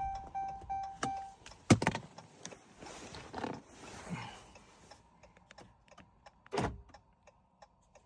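A car chime beeping rapidly for about the first second and a half, then a sharp click, scattered small clicks and rustling, and a single thump near the end.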